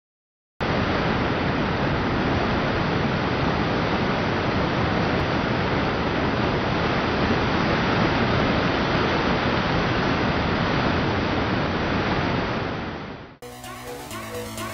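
Whitewater rapids rushing: a steady, even rush of churning river water. It fades out near the end and an electronic music track starts.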